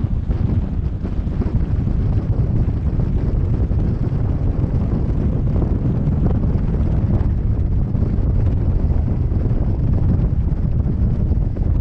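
Wind buffeting the microphone of a camera carried by a paraglider pilot in flight: a steady, deep rush of airflow with no breaks.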